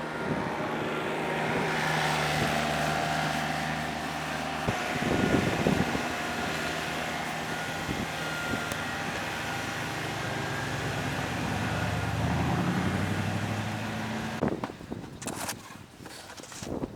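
Motor vehicle engine running steadily with wind blowing. A little before the end the engine sound drops away and gusts of wind buffet the microphone.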